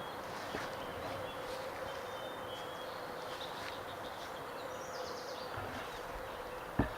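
Outdoor ambience: a steady hiss of background noise with faint, short, high chirps and a faint steady hum, and a sharp knock near the end.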